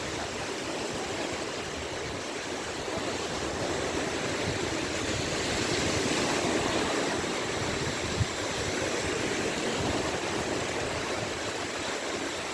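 Small waves washing onto the shore of the Gulf of Finland: a steady rushing wash that swells around the middle. A single short knock about eight seconds in.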